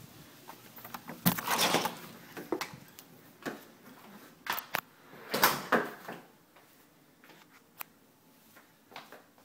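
A front door handled and swung shut, with a series of knocks, clicks and short rustling bursts, then quieter scattered clicks as someone moves through an empty room.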